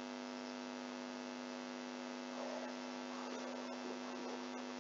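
Steady electrical hum with a stack of even overtones, of the kind a recording picks up from mains power, with faint wavering sounds in the second half.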